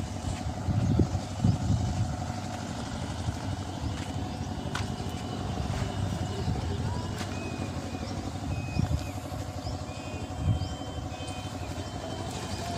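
Steady low rumble of a vehicle engine running, with a few low thumps.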